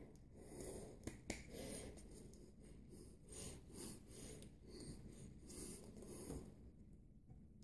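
Faint rustling and rubbing of hands and clothing with soft breathing, and two sharp taps about a second in.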